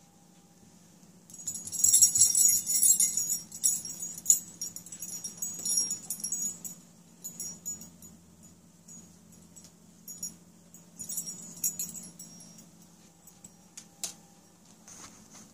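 Small bells on dangling cat toys jingling as the toys are shaken and batted: a long, loud flurry starting about a second in, then scattered jingles and a second shorter flurry later, with a single sharp click near the end.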